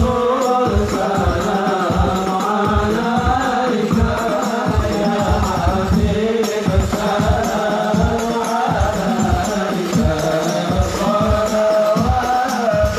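A group of men singing a sholawat devotional song together, led through a microphone, with hand-struck rebana frame drums beating a steady rhythm under the voices.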